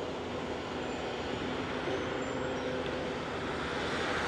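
Steady road traffic noise, an even rush of passing vehicles that swells slightly near the end.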